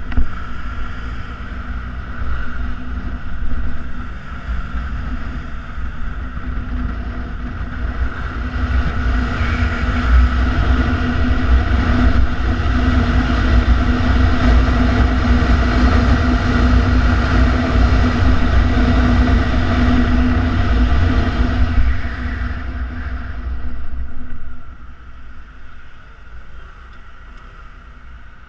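Yamaha Xenter 150cc single-cylinder four-stroke scooter engine running on the move, with wind rush. It grows louder as speed builds, then drops away near the end as the scooter slows in traffic.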